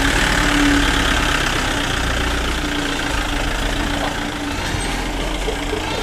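Mahindra pickup truck's engine running at low speed as the truck is driven slowly in, a steady, even engine sound with a constant hum.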